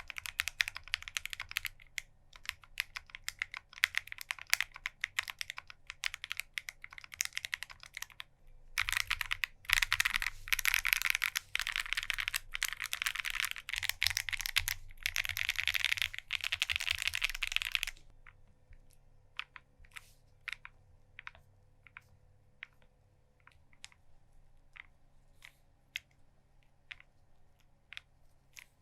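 Typing on an Alice-layout mechanical keyboard, an Akko ACR Pro with lubed Akko CS linear switches and PBT keycaps. Steady typing stops briefly, picks up faster and denser, then about two-thirds of the way through gives way to single keystrokes spaced apart.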